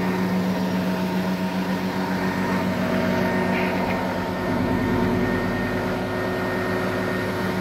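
Aerial ladder fire engine's engine running steadily with the ladder raised, driving the ladder's hydraulics; a steady, pitched drone.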